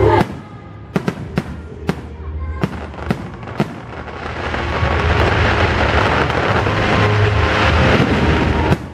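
Aerial fireworks: a run of sharp bangs from shell bursts in the first few seconds, then from about four seconds in a dense, building hiss and crackle of gold crackling shells and falling sparks that stops abruptly near the end.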